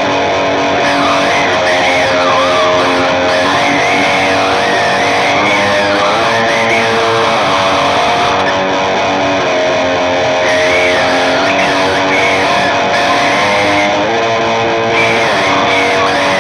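Instrumental music led by electric guitar: sustained chords changing every couple of seconds, with a lead line that bends up and down in pitch above them.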